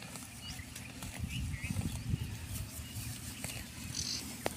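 A young water buffalo grazing close by, cropping and chewing dry grass: irregular low crunching and tearing, busier from about a second in.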